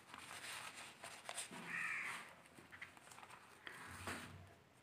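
A crow cawing once, faintly, about two seconds in, over faint rustling of notebook paper.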